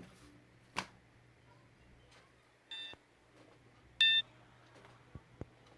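Two short electronic beeps about a second and a half apart, the second louder, with a few sharp clicks around them.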